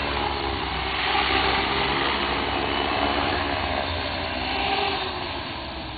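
A 50-size electric RC helicopter hovering low, its electric motor and main rotor running with a steady whir and whine that swells about a second in and eases near the end. One main rotor blade is pitched slightly differently from the other, so the blades are out of track.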